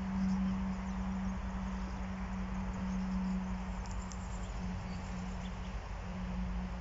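A large bee buzzing close by in a steady low hum that swells and fades, dipping briefly about five seconds in, over a low rumble.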